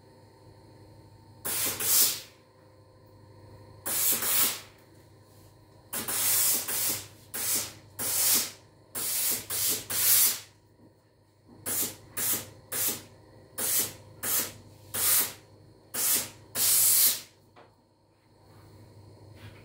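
Laurastar steam iron giving short bursts of steam, about fifteen hisses of half a second to a second each, coming closer together in the second half and stopping near the end.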